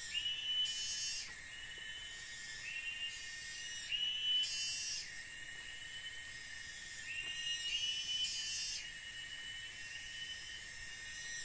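Forest insect chorus: a steady high buzz with chirping trills that repeat about every second.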